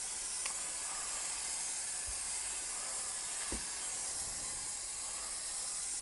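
Aerosol spray-paint can spraying in one long steady hiss from a nearly empty can, stopping abruptly at the end.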